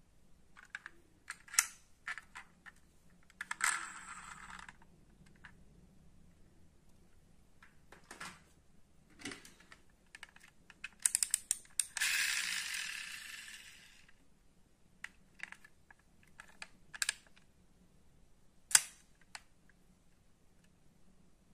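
Die-cast metal model cars being handled: scattered clicks and taps of small metal and plastic parts against fingers. About halfway a rapid run of ratcheting clicks comes, then a noise that fades away over a couple of seconds; a single sharper tap comes near the end.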